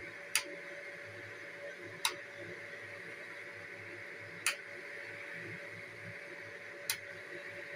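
Four sharp, single clicks about two seconds apart, over a steady high-pitched electrical hum.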